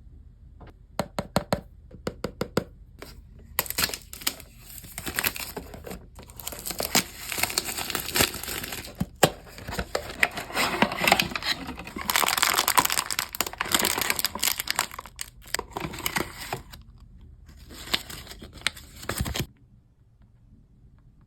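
Packaging being handled and torn open: a few sharp clicks, then a long stretch of crinkling and tearing that stops abruptly near the end.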